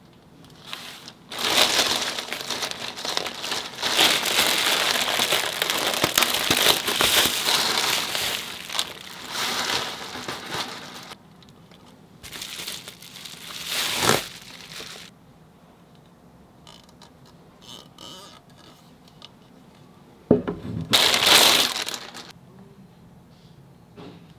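Plastic bag and bubble-wrap sleeve crinkling as they are handled and pulled off. The crinkling is loud and near-continuous for the first ten seconds or so, then comes in shorter bursts. Near the end a sharp click is followed by one more burst of crinkling.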